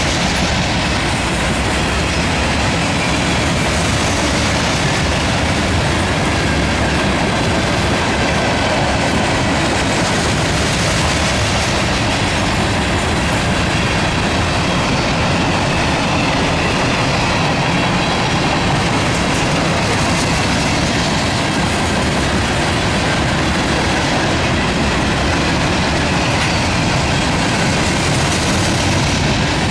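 Freight train of covered hoppers and boxcars rolling past, its steel wheels running on the rails in a steady, loud noise that does not let up.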